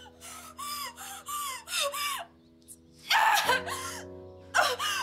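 A woman in labour cries out while pushing: a run of about five short, high, strained cries, then two louder, longer cries about three and four and a half seconds in, over sustained music chords.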